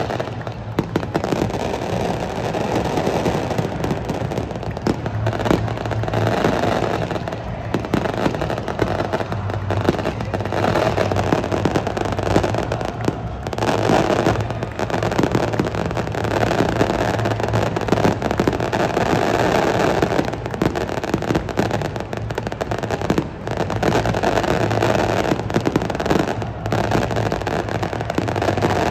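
Fireworks and firecrackers popping and banging again and again over the steady noise of a packed stadium crowd.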